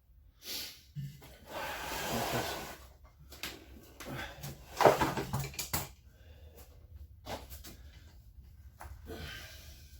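Clicks, knocks and a rustling scrape from handling the parts of a washing machine during disassembly, with one sharp knock about five seconds in.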